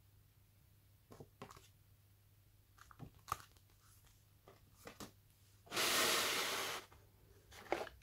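Hands handling paper booklets and box packaging: scattered page rustles and light knocks, with one louder rustle lasting about a second just past the middle.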